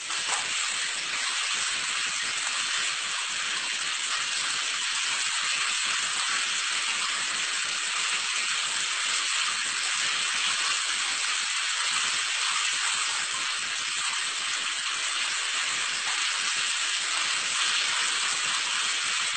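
Steady hiss of running water in a tiled shower.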